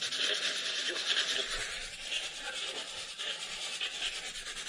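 Steady rasping static hiss, rapidly chopped, from a ghost-box (spirit box) app on a phone sweeping through noise.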